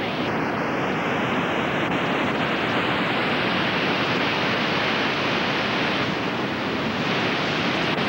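Steady rush of the Iguazu Falls, a great mass of river water pouring over the brink: loud and unbroken.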